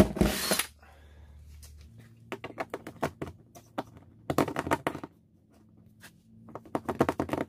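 Power drill cutting through the aluminum side of a boat hull, stopping about half a second in. It is followed by clusters of quick, light clicks and rattles.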